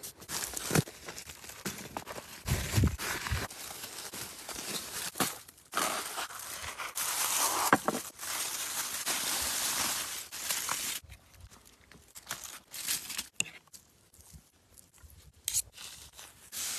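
Plastic packaging being handled: crinkling and tearing, with a long stretch of continuous crinkling in the middle and scattered knocks of items being set down.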